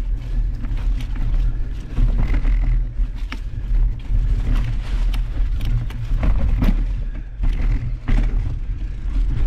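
Mountain bike rolling down a leaf-covered dirt singletrack: a steady low rumble of wind and tyre noise on the mounted camera, with the bike clattering in irregular knocks and rattles as it goes over roots and rocks.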